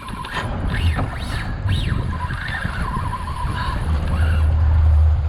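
Fishing reel's drag squealing as a hooked bull shark runs line off, the pitch sweeping up and down. Underneath is a low steady rumble that gets louder near the end.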